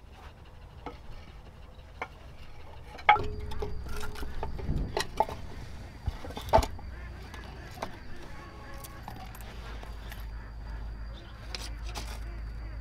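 Split dry firewood being stacked by hand into the firebox of a brick stove: pieces of wood knock and clatter against each other, with a few sharp knocks between about three and seven seconds in.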